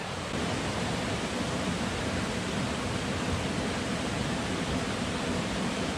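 Shallow rocky mountain river rushing steadily over stones and riffles.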